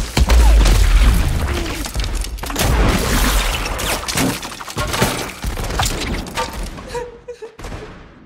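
Film gunfight sound: a rapid string of gunshots with heavy booms and bullet impacts splintering wood, dense at first, then thinning and dropping away in the last couple of seconds.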